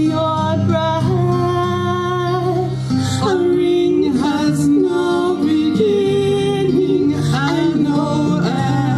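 A woman and a man singing a duet in long held notes, accompanied by acoustic guitar.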